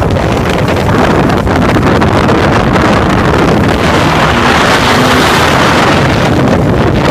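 Wind buffeting the microphone of a camera on a moving motorcycle, with the engine running steadily underneath. The rush of wind swells and grows brighter about four seconds in, then eases back.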